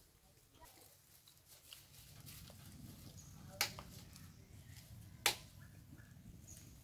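Two sharp clicks about a second and a half apart, over a faint low background rumble.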